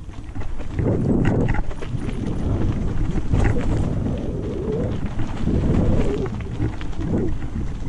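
Wind buffeting a bike-mounted action camera's microphone as the bike rolls down a dirt forest trail, with the tyres rumbling on the ground and short rattling knocks from the bike going over bumps.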